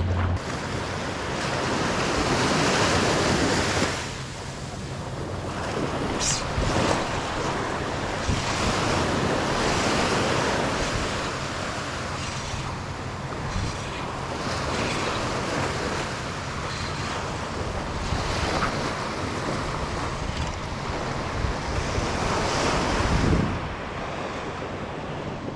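Small surf breaking and washing up a sand beach, swelling and easing every few seconds, with wind buffeting the microphone.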